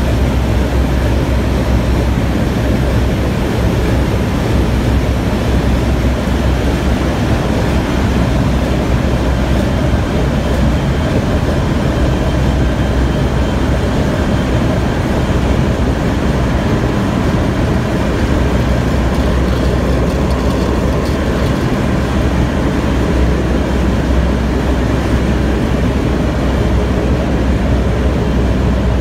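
Steady, loud engine-room machinery noise from a ship's MAN ME-GI two-stroke dual-fuel main engine and surrounding machinery running, a continuous deep hum under an even roar with no change.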